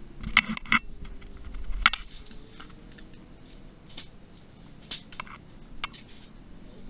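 Scattered sharp clicks and knocks of gear being handled on the ice. The loudest come in the first two seconds over a low rumble, then a few lighter clicks follow.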